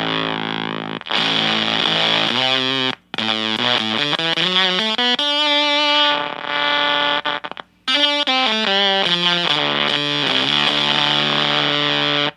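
Fender Stratocaster electric guitar played through a gated silicon fuzz pedal and a Fender Blues Junior amp. It opens on a held distorted chord, then moves into runs of single notes and chords. Twice the sound cuts off abruptly as the gated fuzz closes.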